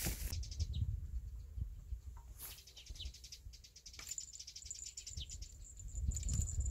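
Wind rumbling on the microphone, loudest at the start and again near the end, with a fast, high-pitched chirping trill running behind it. A thin, steady high whine joins the trill about four seconds in.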